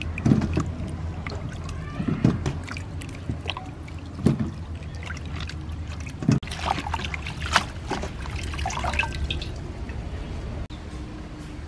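Water splashing and sloshing in a stainless steel basin as hands wash cucumbers and leafy greens, with irregular small splashes and drips.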